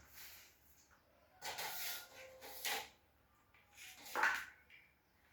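Handling noises from plugging LED strip-light connectors together: a few short scrapes and clicks, the loudest about four seconds in.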